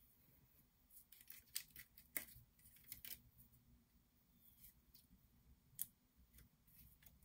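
Faint paper handling: die-cut cardstock pieces popped out of their sheet and the sheets shuffled, giving a cluster of small clicks and rustles over the first few seconds and one sharper click near the end.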